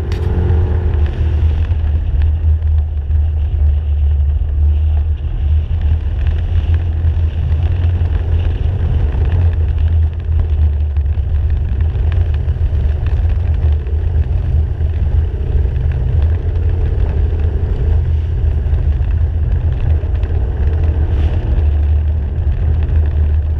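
ATV engine running steadily while riding a dirt trail, picked up by a camera mounted on the machine, so a heavy low rumble of engine and vibration dominates, with a faint engine note wavering slightly above it.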